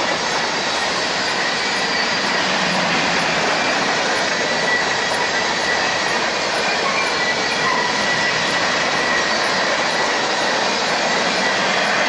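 Freight train of covered hopper cars rolling past close by: a steady noise of steel wheels running on the rails, with a thin high wheel squeal that comes and goes.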